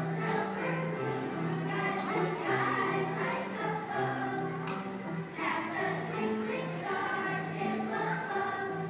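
Children's choir of second graders singing together over a musical accompaniment, its bass line stepping from note to note.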